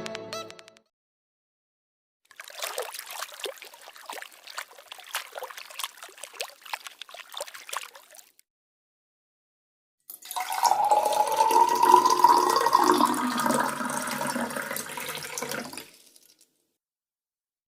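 Two separate water sound effects. The first is about six seconds of crackling, trickling water. After a short silence comes about six seconds of water pouring into a container, its pitch rising as the vessel fills.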